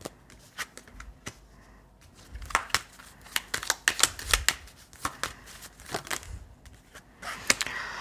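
Oracle cards being shuffled and handled by hand: a few scattered crisp clicks, then a busier run of quick card flicks from about two seconds in.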